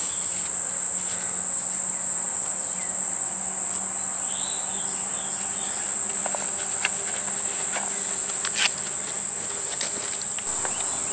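Steady high-pitched buzzing of an insect chorus, with a few faint clicks about two-thirds of the way in.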